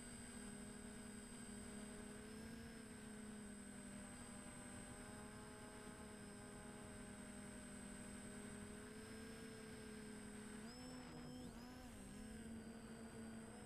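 DJI Flamewheel F450 quadcopter's motors and propellers humming faintly as a steady cluster of tones, which dip and rise briefly about eleven seconds in.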